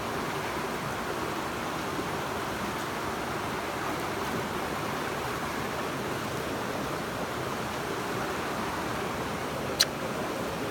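River water rushing steadily, with one sharp click near the end.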